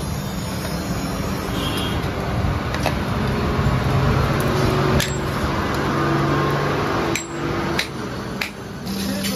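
Hand hammer striking red-hot steel on an anvil: several sharp metallic blows, spaced a couple of seconds apart at first and coming about every half second near the end, over a steady background noise.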